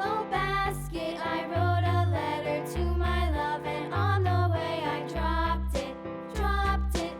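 Upbeat children's music with a steady bass beat and a bright melody.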